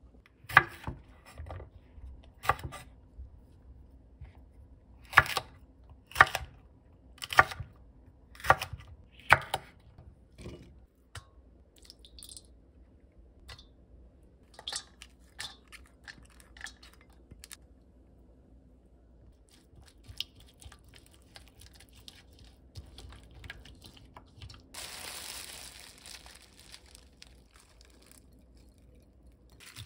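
Kitchen food-preparation sounds: about seven sharp clicks of wooden chopsticks against a ceramic plate as cooked eggplant pieces are laid down, then quieter scattered taps, and a brief burst of rustling noise about 25 seconds in.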